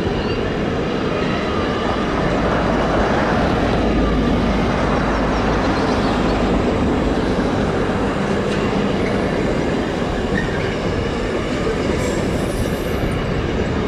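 A train running past on the line, a steady, loud rumble of wheels on rail that holds for the whole stretch.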